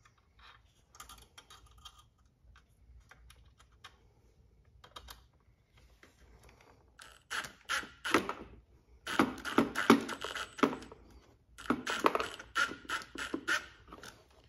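Rapid clicking and scraping of a screw being driven in to fasten an LED light behind the car's grille. It comes in three spells starting about halfway through, after a few light handling clicks.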